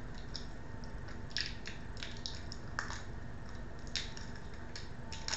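Stiff plastic packaging being cut and pulled off by hand: a few separate sharp crackles and clicks spread through, over a steady low hum.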